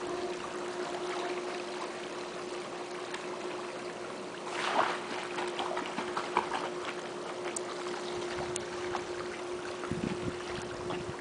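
A dog leaps off a pool float into the water with a splash about four and a half seconds in, then swims, paddling with small splashes and lapping water. A steady hum runs underneath throughout.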